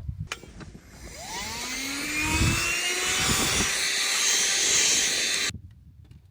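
A motor spinning up: rising whines over a loud rushing hiss that builds and then cuts off suddenly about five and a half seconds in.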